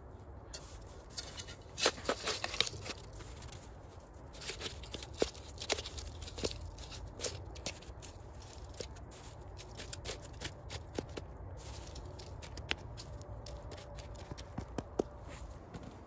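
Irregular sharp clicks and snaps with light rustling, bunched about two seconds in, again between five and seven seconds, and near the end.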